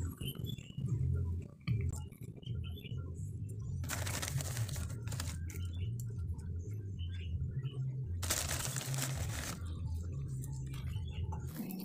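Potting media being added to a plastic bonsai pot and worked in by hand: two rustling, gritty pours about four and eight seconds in, with small crackles of soil being pressed between them.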